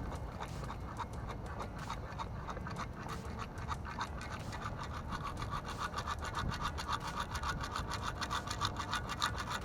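Beach sand scoop loaded with sand and coins being shaken, sand sifting and coins rattling in a rapid run of scratchy clicks that grows busier and louder from about four seconds in.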